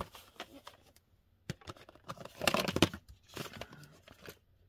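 A VHS cassette being handled and taken out of its clear plastic case: plastic clicks, knocks and scraping, loudest in a cluster a little past halfway.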